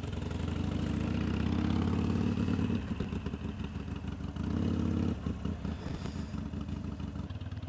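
Motorcycle engine running as the bike rides off down the road, getting louder over the first three seconds, dropping back, then rising briefly again about four and a half seconds in.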